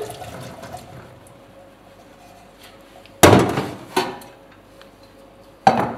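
Freshly boiled beans being drained in a stainless-steel sink: the draining water dies away within the first second, then the metal sieve and saucepan knock against steel, one loud clank about three seconds in, a smaller one soon after, and another near the end.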